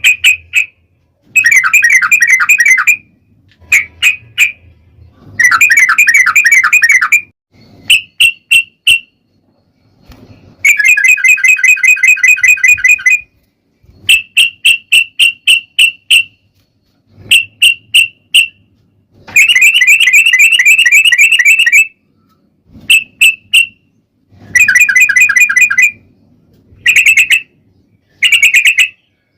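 Yellow-vented bulbul (trucukan) singing loud bursts of fast, chattering trills, each one to three seconds long, alternating with runs of short quick notes and brief pauses.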